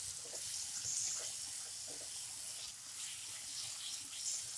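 Tomato and green pea masala sizzling steadily in a non-stick frying pan while a spatula stirs it, with faint scrapes.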